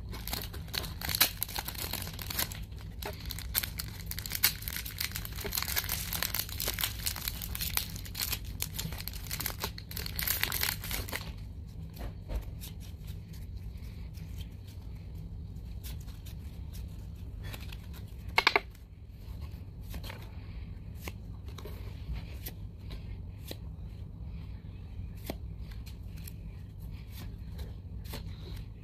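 Foil Pokémon booster pack crinkling and tearing open for about the first eleven seconds, then quieter sliding and clicking of trading cards being handled and flipped through. One short, sharp sound about two-thirds of the way in is the loudest moment, over a steady low hum.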